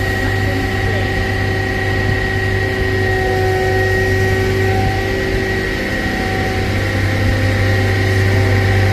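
Diesel engine of a yellow rail track maintenance machine, DR 80209, running steadily as the machine creeps slowly past at close range, with a deep hum and a steady high whine over it.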